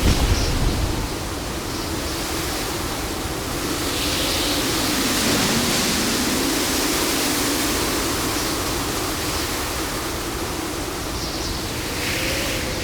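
Stormy ocean: a continuous rush of surf and breaking waves, with a low heavy surge in the first second and the noise swelling again around the middle.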